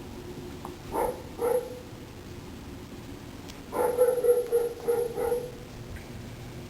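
Dog barking: two short barks about a second in, then a quick run of barks around four seconds in.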